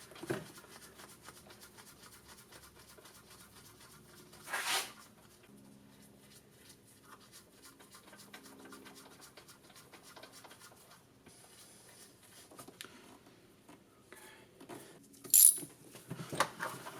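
Quiet hand work on the golf cart's engine while new spark plugs are fitted, with the engine not running. There is a short scuff about four and a half seconds in, then a few sharp metallic clicks and clinks of tools near the end, the loudest about fifteen seconds in.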